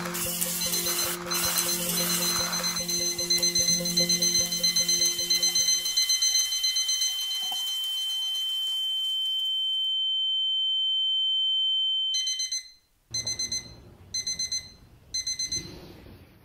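Music with a high held tone swelling under it, which cuts off suddenly; then an alarm beeping in four short bursts about a second apart, a wake-up alarm going off.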